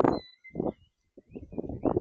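Birds chirping faintly, with several loud short bursts of low rustling or knocking.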